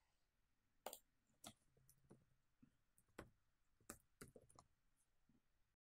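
Faint, irregular keystrokes on a computer keyboard: a dozen or so separate clicks of typing.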